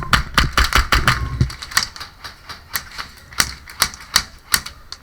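Airsoft gunfire: a fast run of sharp cracks over the first second and a half, then single shots at uneven intervals, about three a second.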